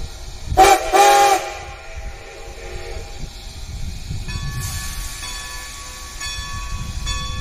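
Steam whistle of GW 90, a 2-10-0 steam locomotive, blowing a short blast and then a longer one about a second in, sounded for the grade crossing, with the locomotive's low rumble underneath. About four seconds in, the crossing's warning bell starts ringing steadily.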